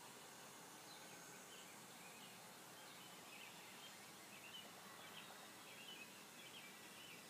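Near silence: a steady outdoor hiss with faint, distant bird chirps starting about a second in.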